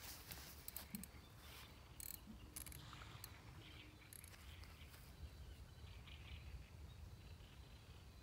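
Near silence: faint outdoor ambience, a low steady rumble with a few scattered soft clicks in the first few seconds.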